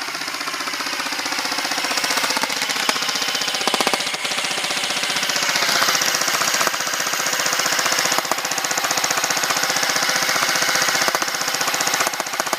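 Airsoft electric gun (AEG) firing full-auto in one long unbroken burst: a fast, even, rattling string of shots with the gearbox whirring.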